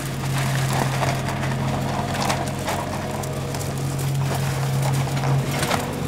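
Widontec MC3 self-propelled trike vacuum cleaner running with a steady engine hum, while scattered litter cracks and clatters irregularly as it is sucked up through the intake hose.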